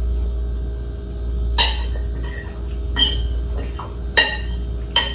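A metal fork clinking sharply on a ceramic dinner plate several times, about a second apart, over a steady low hum.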